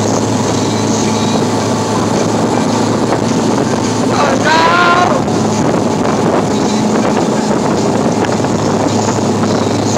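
Motorboat running steadily at speed, its engine hum under the rush of the wake and wind buffeting the microphone. About four seconds in, a voice lets out a brief shout.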